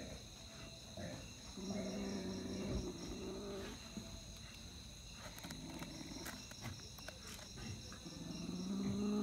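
A house cat growling over its caught mouse: low, drawn-out growls, three long ones, over the steady chirring of crickets, with a few faint clicks in the middle.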